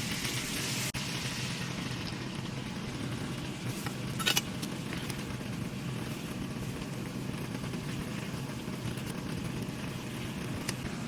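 Steady sizzling of food frying in a pan, with a brief clatter about four seconds in.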